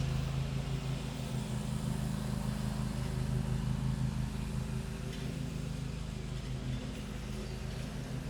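Lawn mower engine running steadily with a low, even drone.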